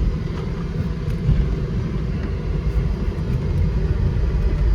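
Inside a moving car: a steady low rumble of road and engine noise, with the air conditioning blowing at full.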